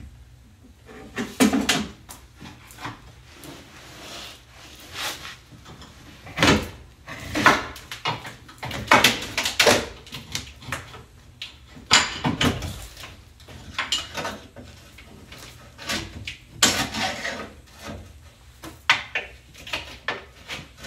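Irregular clunks, knocks and scraping as a fuel tank is worked down from under a Jeep and its hoses are freed by hand and with tools, with rustling of clothing against the floor between the knocks.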